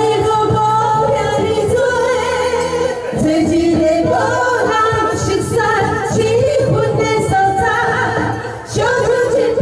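Two women singing a duet into microphones over a karaoke backing track, with a brief drop between phrases near the end.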